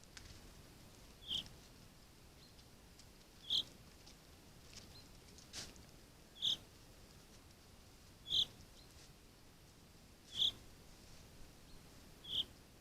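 A bird giving short single high calls, six in all, about every two seconds, with a few faint clicks between them.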